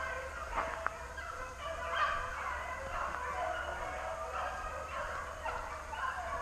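A pack of rabbit hounds baying without a break, several dogs' voices overlapping: the dogs are in full cry on a running rabbit's trail. A brief sharp click comes just under a second in.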